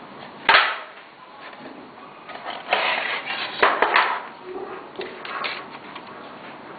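Handling noise from a DVD-ROM drive being put back together: a sharp click about half a second in, then bursts of scraping and rattling from its sheet-metal casing and plastic tray.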